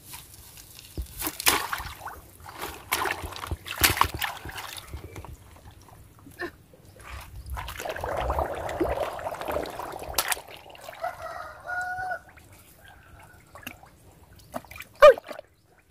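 Water sloshing and splashing in shallow muddy water at the mouth of a fish hole in a mud bank, with scattered knocks and rustles as a bamboo basket is pressed over the hole. A short pitched call, twice in quick succession, comes a little past the middle.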